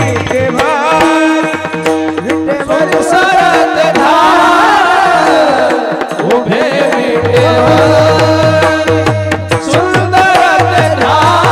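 Male voice singing a Warkari kirtan melody in long, ornamented, wavering lines, over steady held accompaniment tones. Rhythmic mridang strokes accompany it, dropping out for a few seconds in the middle and then resuming.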